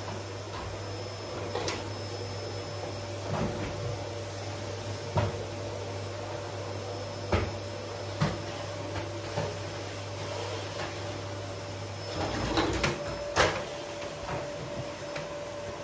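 Scattered knocks and clatters of things being handled in a kitchen, over a steady low hum that stops about twelve seconds in, followed by a short cluster of knocks.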